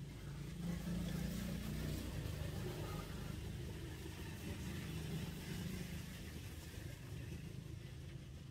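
A motor engine running with a steady low rumble, swelling about a second in and then holding.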